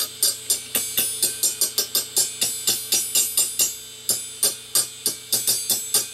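Tips of a pair of snips scraping and ticking against the spinning platters of an opened hard drive: a fast, uneven run of sharp metallic ticks with a cymbal-like ring, over the faint steady hum of the spindle motor. The blades are gouging scratches into the platter surface.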